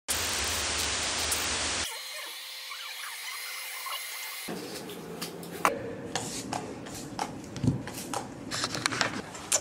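A hair dryer blowing steadily, its sound turning thinner and higher about two seconds in. About halfway through, a run of sharp clicks and knocks from the camera being handled takes over.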